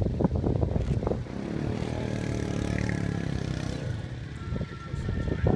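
Quad bike engine running steadily at low revs. There is irregular crackling and knocking in the first second or so.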